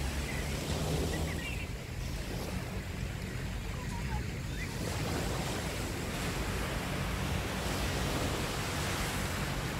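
Small waves breaking and washing onto a sandy beach, with steady wind buffeting the microphone in a low rumble.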